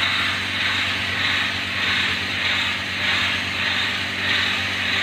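High-speed pencil sharpening machine running steadily: a low motor hum under an even whirring noise.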